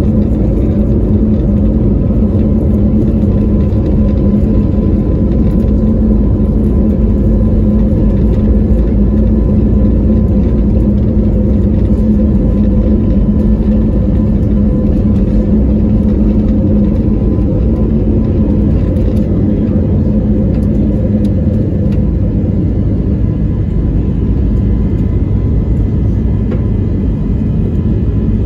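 Jet airliner engines running at takeoff power: a loud, steady rumble with a constant low hum, unchanging throughout.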